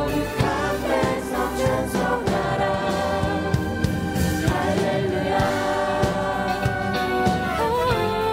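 Live worship band playing a Korean praise song, a group of singers singing together over keyboards, electric guitar, bass and drums with a steady drum beat.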